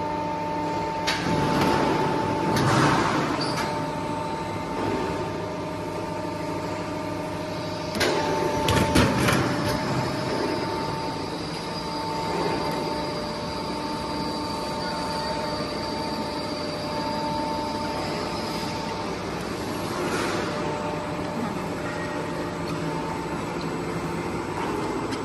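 Flexible duct connector making machine running: a steady motor whine under mechanical clatter, with a quick run of sharp clanks about eight to nine seconds in and a faint high whine for several seconds after.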